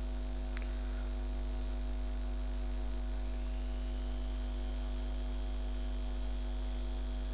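Steady mains hum with a few faint steady tones above it and a faint, even ticking about five times a second.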